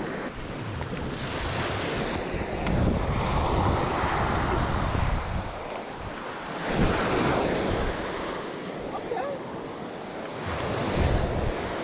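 Small Lake Michigan waves washing onto a sandy beach, swelling and easing every few seconds, with wind buffeting the microphone in low gusts.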